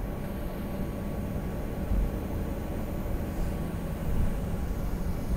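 Steady low rumble of an airliner taxiing, heard inside the cabin, with its jet engines at idle and a faint steady hum. A low bump about two seconds in.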